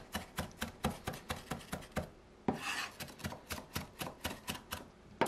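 Kitchen knife rapidly mincing green onion on a wooden cutting board: quick, even chops about five a second, with a short break about two seconds in before the chopping resumes.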